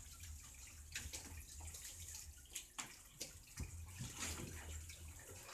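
Wet plaster being smeared and patted by hand onto a plaster dome mould: irregular wet slaps and scrapes, over a low steady hum.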